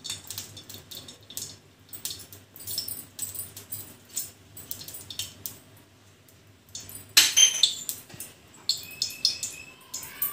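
Scattered light clicks and clinks of metal kitchenware, with one louder metallic clink about seven seconds in that rings briefly. A low hum runs under the first part and stops around the clink.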